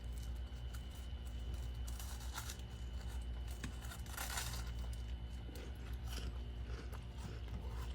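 Person biting and chewing crunchy frost, a run of crisp, irregular crunches with a longer crunch about halfway through.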